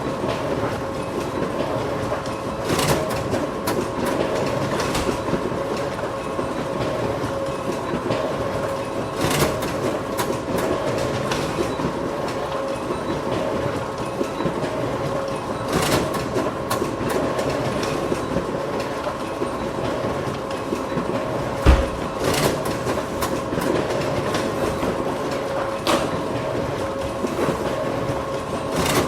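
Photocopier running continuously: a steady mechanical rumble with a constant hum, sharp clacks every six seconds or so, and one louder low thump about three-quarters of the way through.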